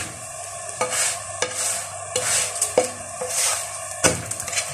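A spatula pressing and scraping a msemen flatbread against a hot steel griddle, with a sharp click every half second or so over the sizzle of the butter-laden dough. A louder clack comes about four seconds in.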